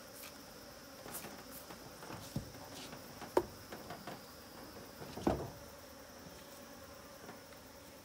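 Asian honeybees (Apis cerana) buzzing around an opened box hive, a faint steady hum. A few sharp knocks cut through it, the loudest about three and a half seconds in, as wooden hive frames are handled.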